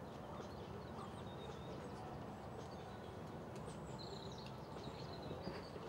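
Birds chirping over a steady outdoor background hum, with faint hoofbeats of a horse on the sand arena growing clearer near the end.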